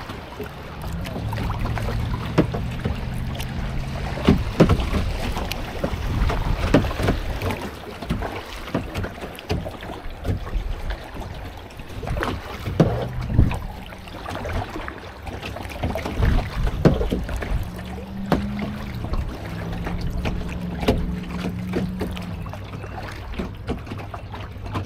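Water sounds around a kayak on a flowing river: irregular splashes and small knocks scattered throughout, over a low rumble of wind on the microphone.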